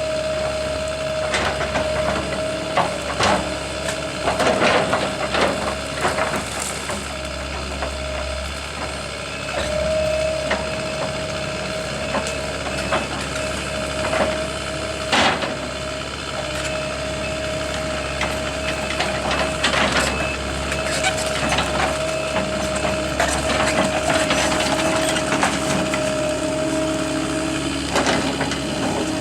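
Wood cracking and snapping in a series of sharp cracks over a steady engine hum, typical of machinery working on a felled tree.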